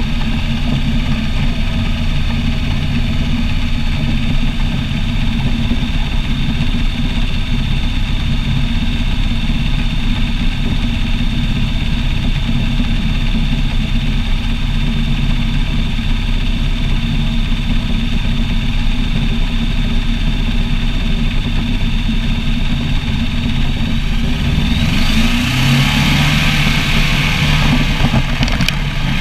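Ultralight trike's engine and rear pusher propeller running steadily close to the microphone. About 25 seconds in, the engine note rises and a rushing hiss joins it.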